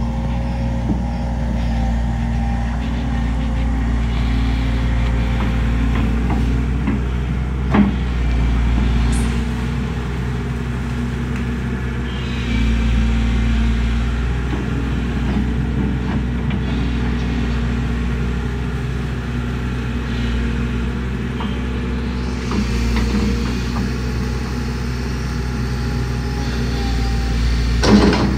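Kobelco compact excavator's diesel engine running steadily while the boom and bucket work in brush, with a sharp clunk about eight seconds in and another near the end.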